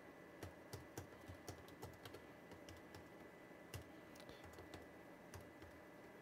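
Faint typing on a computer keyboard: irregular key clicks, a few a second.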